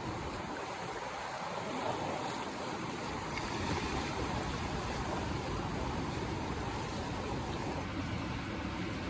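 Steady rushing noise with no distinct events or voices.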